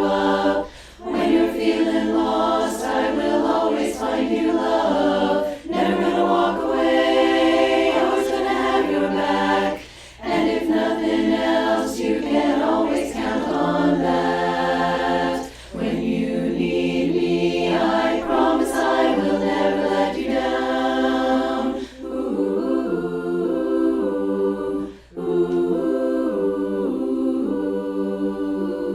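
A chorus singing unaccompanied in multi-part harmony, in phrases separated by short breath pauses; after about two-thirds of the way through the singing turns softer and less bright.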